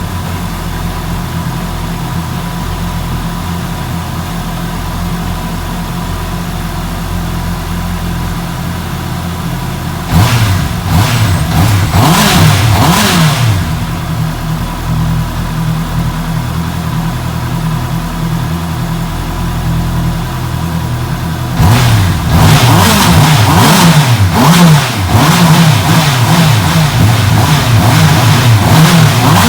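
Motorcycle engine warming up: it idles steadily for about ten seconds, is revved in a few quick blips that rise and fall in pitch, settles back to a steady run, then is revved repeatedly through the last several seconds.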